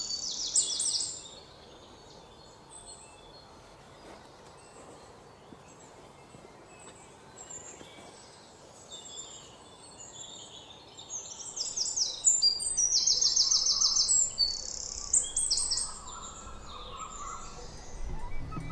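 Birds chirping in quick, high trills. The calls fade almost away for several seconds and return louder and denser in the last third.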